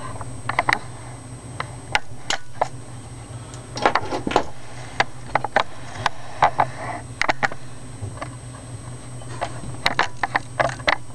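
Irregular sharp metallic taps and clicks of hand tools on an AR-15 lower receiver and its small parts as a pin is worked into place, some single and some in quick clusters, over a steady low hum.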